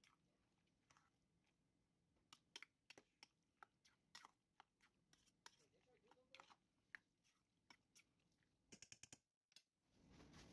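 A metal spoon stirs a mayonnaise-dressed pea and carrot salad in a stainless steel bowl, making faint irregular clicks and scrapes against the bowl. A quick run of clicks comes near the end, then a short rush of noise.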